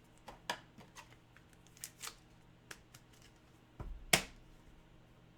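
Trading cards being handled: soft rustles and light clicks, with a louder knock about four seconds in.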